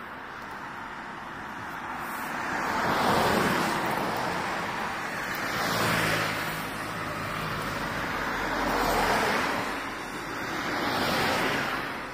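Road traffic going by: four vehicles pass one after another, each a swelling and fading whoosh of tyre and engine noise.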